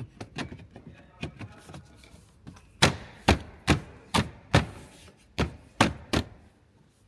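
Hand knocking on a car's interior plastic trim panel to seat it into its clips: a few light clicks, then eight sharp knocks about two a second, with a short pause partway through.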